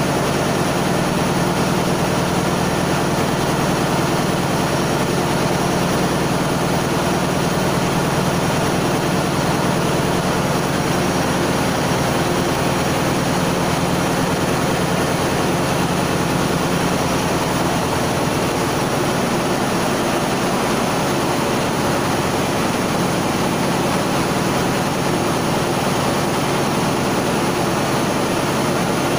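Steady drone of a ship's engine-room machinery running, a constant din with a low hum whose deepest tones ease a little about two-thirds of the way through.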